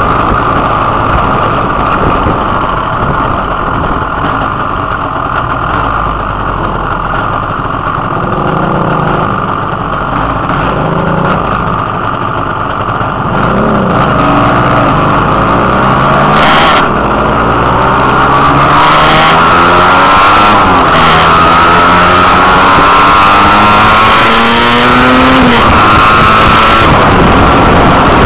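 Motorcycles riding at speed, with heavy wind and road rush on the microphone. From about halfway an engine accelerates, its pitch climbing and dropping at a gear change, then climbing again before a second shift near the end; the sound gets louder in the second half.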